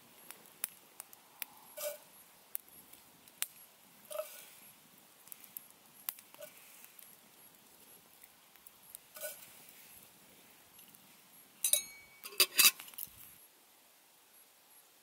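Wood campfire crackling, with scattered sharp pops and snaps a second or two apart. About twelve seconds in, a short run of louder ringing metallic clinks, metal knocking on metal.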